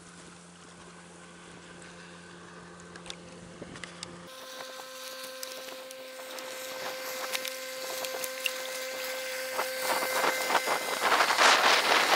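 Small outboard motor running at speed on a planing inflatable boat, heard from a distance as a steady hum that grows louder. Near the end, wind buffets the microphone.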